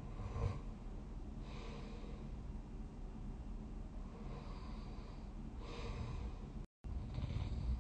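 A sleeping person snoring: a short snort about half a second in, then a run of breathy snoring inhales and exhales every second or so.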